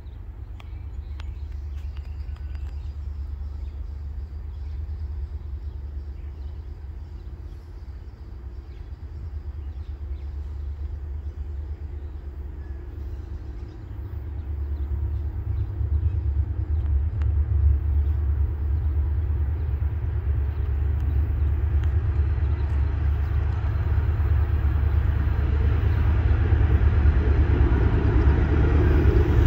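Diesel locomotives of an approaching Norfolk Southern freight train, still out of sight: a low rumble that grows louder, stepping up about halfway through and filling out higher near the end.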